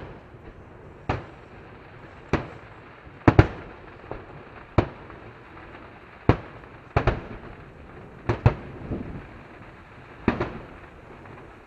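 Aerial firework shells bursting: about a dozen sharp bangs at irregular intervals of roughly a second, some in quick pairs, each trailing off in a short rumbling echo.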